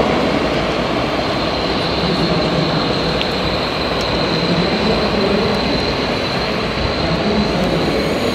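Radio-controlled scale tractor running as it hauls a soil-loaded tipper trailer, a steady drive noise with a thin high whine, over the steady hubbub of an exhibition hall.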